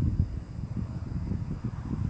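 Wind buffeting a phone's microphone in irregular low gusts, with the faint steady high chirring of crickets behind it.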